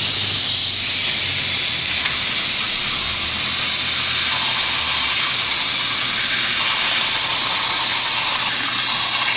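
Thermal oxygen lance burning through a seized steel kingpin: a loud, steady hiss of oxygen rushing through the burning lance rod.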